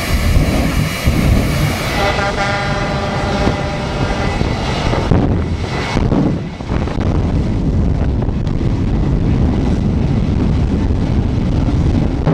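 Jet engine of a jet-powered semi truck running at high power with its afterburner lit: a loud, rough, steady roar. A whistling whine sits over it from about two to five seconds in.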